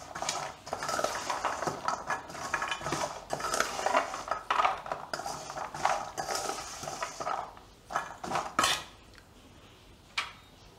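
Metal spoon stirring fried cashews in spice powder in a stainless-steel bowl: steady scraping and clinking of spoon on bowl with the nuts rattling. The stirring stops about seven and a half seconds in, followed by a few taps and one last clink near the end.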